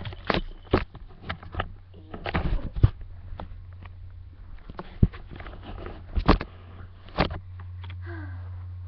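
Handling noise from a hand-held camera being swung and carried: scattered knocks, bumps and rustles, two of them louder later on, over a steady low hum.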